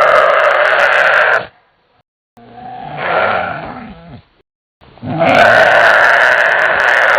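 Home-made dinosaur roar sound effects. A long, loud roar breaks off about a second and a half in, a quieter grunting call swells and fades in the middle, and a second long, loud roar begins about five seconds in.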